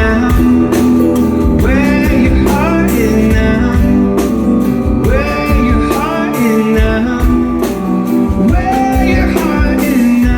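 Live performance of a rock song: strummed guitar with singing, the voice gliding through long held notes.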